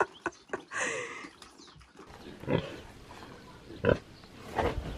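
Farm animal calling: a noisy burst about a second in, then a few short, rough calls spaced about a second apart in the second half.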